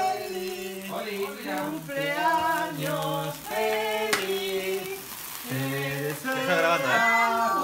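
A group of voices, children and adults together, singing a birthday song in held notes, over the steady fizz of sparkler fountain candles burning on the cake.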